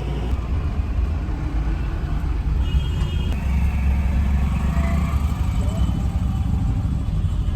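Bus on the move: a steady, loud low rumble of engine and road noise, with faint voices in the background.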